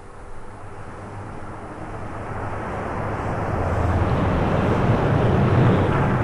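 Street vehicle rumbling, growing steadily louder as it approaches, with a low hum underneath.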